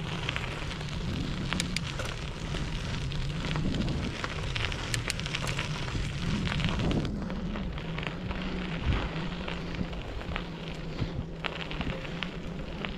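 Bicycle tyres rolling over a dirt and crushed-stone trail: a steady gritty crackle with scattered small pops and clicks, over a low wavering hum.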